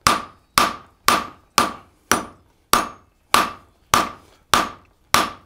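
Hand hammer striking a red-hot steel bar on the horn of an anvil, about ten blows at roughly two a second, each ringing briefly: drawing out the bar's end to make a hook.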